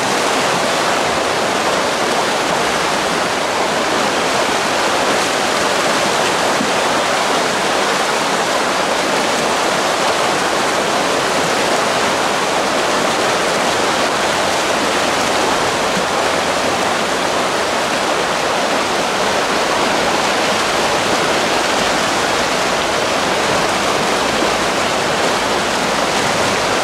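Shallow river water rushing over a stony riffle: a steady, unbroken rush.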